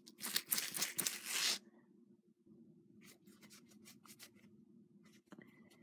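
Dry rustling and rubbing from a clear plastic bag and jewelry being handled on the table. It is loud for about the first second and a half, then drops to faint light crinkles and ticks.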